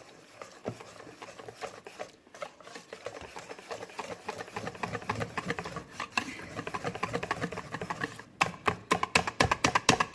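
Hand whisk beating a runny jalebi batter in a bowl, with rapid clicking, slapping strokes as more water is worked in. The strokes grow louder and faster near the end.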